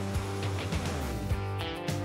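Background music: a guitar-led track with a steady beat, about two beats a second.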